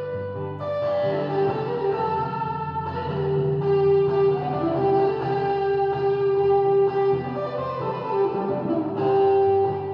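Electric guitar, a semi-hollow body, playing a lead line of long held notes, amplified through the UTV's onboard speaker system and amps.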